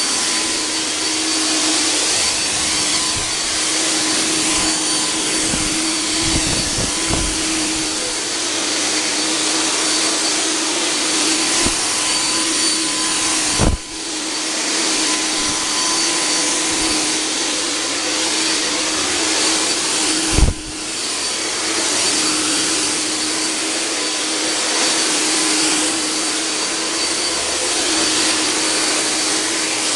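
"Volkodav" cold fog generator running steadily, its blower motor hissing with a constant hum as it sprays insecticide solution as a fine aerosol. There are two short knocks, one about halfway through and another some seven seconds later, each followed by a momentary dip in the running sound.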